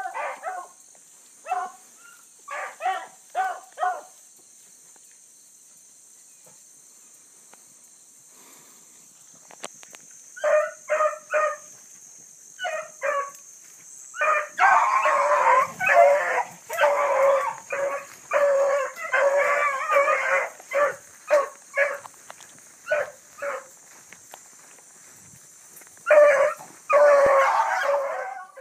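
Bluetick hounds baying on the track of a running rabbit, giving voice in short bawls. A few bays come in the first seconds, then a lull. About ten seconds in the baying picks up again, and from about fifteen seconds it grows louder and denser, with several dogs at once, as the chase runs on.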